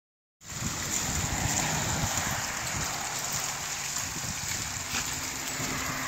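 Water spilling over and down the sides of stacked-stone urn fountains and splashing onto the rocks below, a steady rush, starting about half a second in. Wind rumbles on the microphone underneath.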